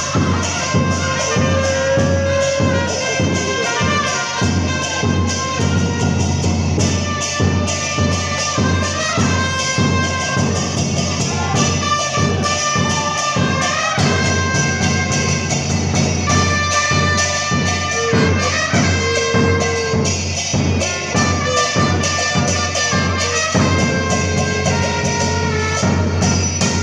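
Two trumpets playing a cumbia melody of held and moving notes over a steady beat on a bombo murguero (murga bass drum).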